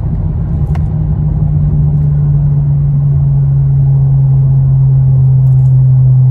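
2022 Honda Civic Si's 1.5-litre turbocharged four-cylinder heard from inside the cabin, pulling under acceleration on an 18 psi KTuner tune: a steady low drone that grows louder. There is a short click about a second in.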